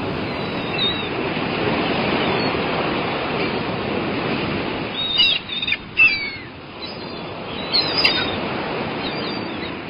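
Steady wash of river waves, with black-headed gulls calling in a cluster of short calls about halfway through and again near the end.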